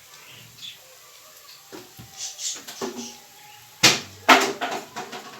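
Kitchen bowl and utensils being handled: a few light clicks, then loud knocks with a short metallic ringing about four seconds in, as dough ingredients go into a mixing bowl.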